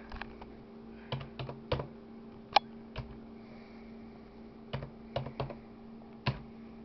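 Computer keyboard keys tapped one at a time in short irregular runs, with a pause of over a second in the middle, as an IP address is typed. A steady low hum runs underneath.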